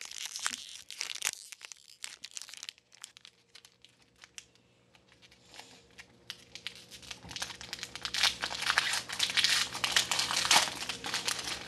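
Foil wrapper of a baseball card pack crinkling as it is handled and torn open. A short spell of crinkling at the start, a quieter stretch, then dense, louder crinkling from about eight seconds in.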